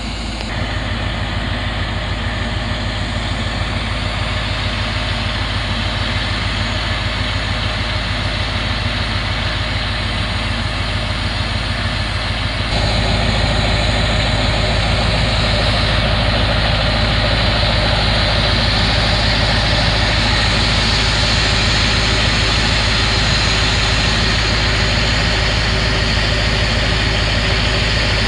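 Diesel engine of an SRT DHW-400 rail maintenance vehicle running steadily with a low, even pulse. It gets louder suddenly about 13 seconds in.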